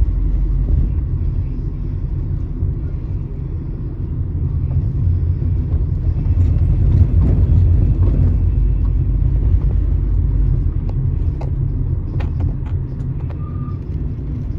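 Low, steady rumble of road noise inside a moving car's cabin, with a few light clicks near the end.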